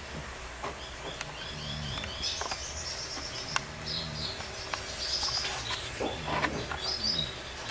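English bulldog snoring, a low snore with each breath about every second or so. Birds chirp in the background.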